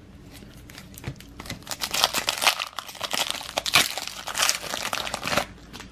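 Foil wrapper of a trading-card pack being torn open and crinkled, a run of sharp crackles and rustles that stops shortly before the end.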